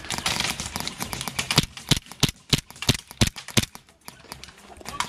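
Airsoft gun firing semi-automatic, about seven sharp shots roughly a third of a second apart, after a second or so of rustling.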